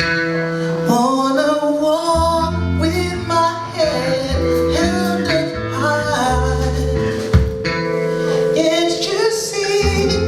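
Live band playing a song, with a sung vocal line over a pulsing bass line and held instrumental notes.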